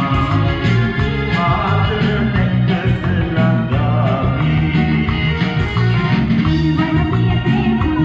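Karaoke backing track with a steady bass line, with a man and a woman singing along into microphones.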